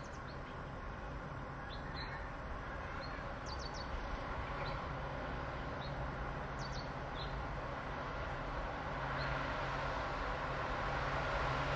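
Indian Railways WDP4D diesel locomotive, with its EMD two-stroke engine, approaching from a distance: a low, steady engine drone and rail noise that slowly grows louder. Birds chirp briefly over it.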